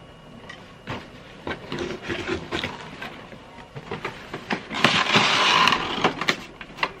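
Packaging being handled as a large boxed action figure is slid out: scattered clicks and scrapes, then a louder stretch of rustling and scraping about five seconds in.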